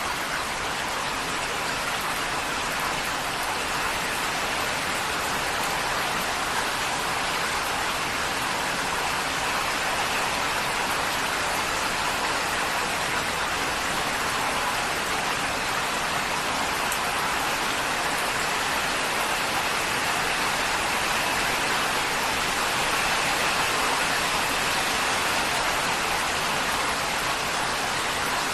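Heavy rain falling on a tin roof, a dense, even patter that holds steady.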